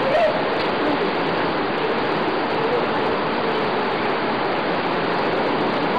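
Steady, loud rush of falling water from a waterfall or fast stream.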